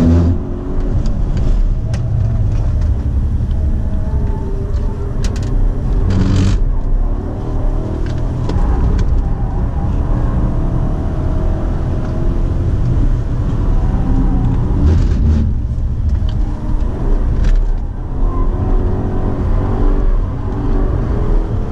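2017 BMW Alpina B7's twin-turbo V8 under hard driving on a race track, its note falling and rising as the car brakes for corners and accelerates out of them, over a steady rush of tyre and wind noise.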